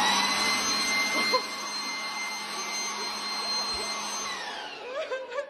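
Handheld leaf blower running at full speed with a steady high whine, then switched off about four seconds in and winding down. Voices come in near the end.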